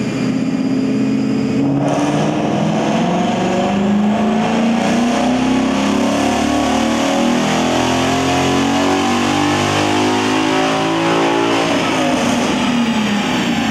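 2015 Mustang GT's 5.0-litre V8, breathing through a Ford Performance GT350 catback exhaust with sport mufflers, making a full-throttle baseline pull in fifth gear on a chassis dyno. The engine note climbs steadily in pitch for about ten seconds, then drops away near the end as the run finishes.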